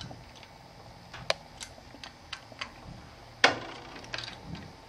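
Small, irregular metal clicks and taps of a hand tool working the screws in a two-blade Max-Prop feathering propeller's hub as they are tightened, with one sharper, briefly ringing click about three and a half seconds in.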